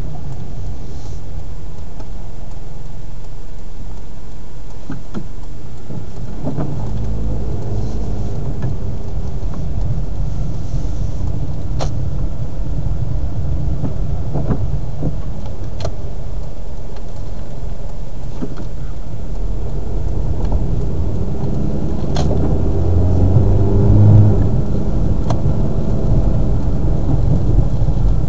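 A car driving in the rain, heard from inside the cabin: a steady low rumble of road and engine noise, with a few sharp ticks. The engine note swells about three quarters of the way through.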